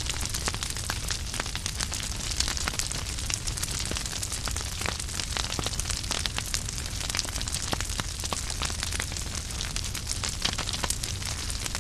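Firewood burning in a fireplace, crackling: a dense run of sharp pops and snaps over a steady hiss of the flames and a low rumble.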